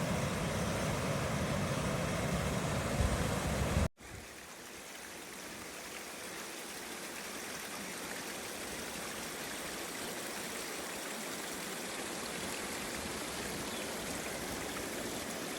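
Waterfall rushing steadily. There is heavy bass rumble at first, then an abrupt cut about four seconds in, after which the rushing carries on thinner and grows slightly louder.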